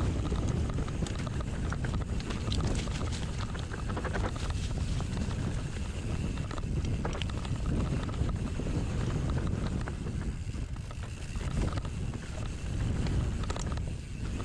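Mountain bike being ridden along a dirt trail: a steady rush of wind on the microphone over the rolling tyres, with scattered clicks and rattles as the bike goes over bumps.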